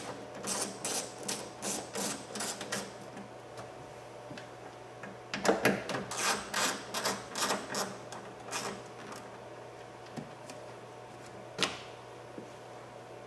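Hand ratchet clicking as it backs out the 8mm bolts that hold a car side mirror to the door: two runs of quick clicks a few seconds apart, and a single click near the end.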